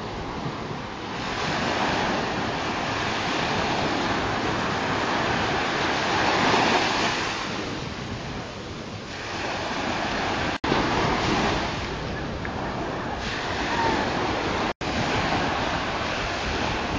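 Surf washing onto the beach, with wind buffeting the microphone. It swells and eases over several seconds, and the sound cuts out for an instant twice in the second half.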